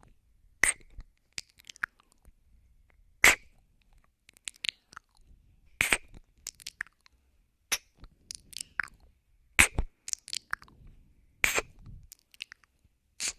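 Close-up ASMR mouth sounds on a binaural microphone: wet kissing and ear-nibbling smacks and clicks. A sharp, louder smack comes every two to three seconds, with softer clicks between.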